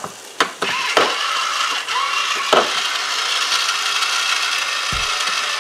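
Electric can opener clamped on the lid of a steel can: a few clicks as it is set in place and started, then its small motor whirs steadily as it cuts around the rim. There is a low bump near the end.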